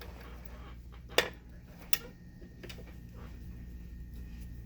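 A few sharp clicks from the skirt and its zipper being handled: the loudest about a second in, another just under a second later, and a fainter one after that, over a steady low hum.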